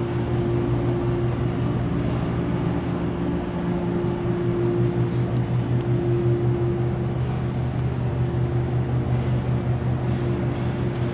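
Steady low mechanical hum of a running machine, with a couple of faint ticks.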